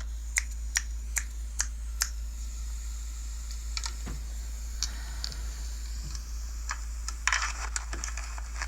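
A series of sharp clicks: five at a steady pace in the first two seconds, a few scattered ones after, and a quick flurry near the end, over a steady low hum.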